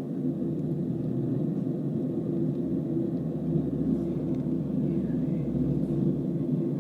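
Hino bus (JGB Ibiza Evolución Maxxi 2 body) under way, heard from on board: a steady engine and road rumble, with a deeper low drone swelling through the middle and easing off near the end.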